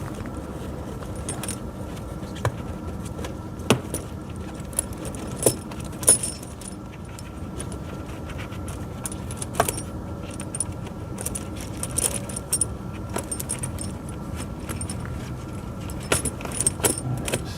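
Steel tractor tire chain links clinking and jingling as they are handled and pulled into place: scattered metallic clinks, several louder ones, over a steady low hum.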